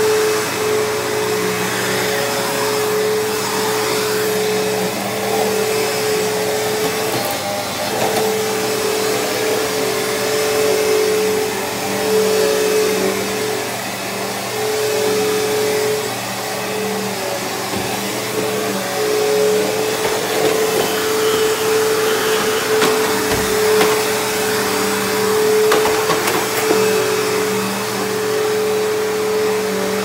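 Bissell CleanView 8975 upright vacuum running on carpet. Its motor makes a steady whine over a rushing of air, swelling and easing a little as the cleaner is pushed back and forth.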